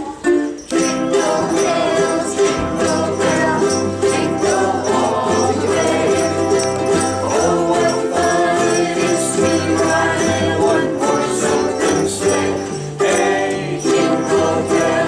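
A ukulele group strumming a Christmas song with voices singing along and jingle bells shaking in time. A few separate chords start it off, then the full band comes in about a second in.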